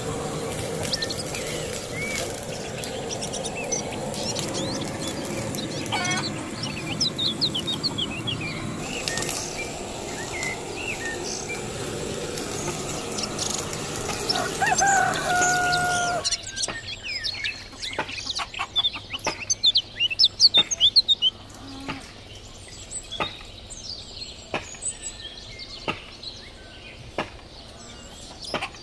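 Handheld gas blowtorch hissing steadily as it singes the skin of a plucked goose, with birds chirping throughout. About 16 seconds in the hiss cuts off, leaving birdsong and a string of sharp clicks and taps.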